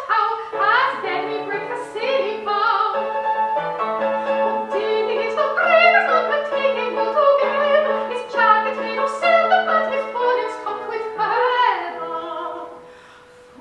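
A woman singing a classical art song in an operatic style, accompanied on an 1812 fortepiano; the music falls to a brief lull near the end.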